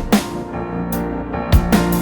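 Background music with a steady electronic beat: kick and snare hits over held keyboard notes.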